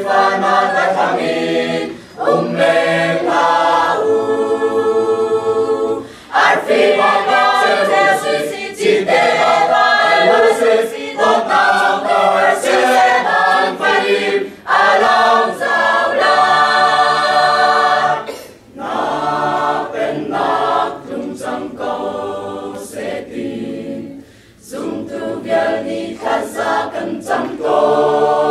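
Mixed church choir of young men and women singing a cappella in harmony, with long held chords and brief breaks for breath between phrases.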